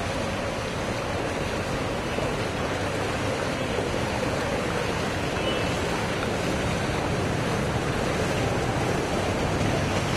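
Steady rushing noise of water on a flooded street. Near the end a low rumble grows as an auto-rickshaw drives through the floodwater.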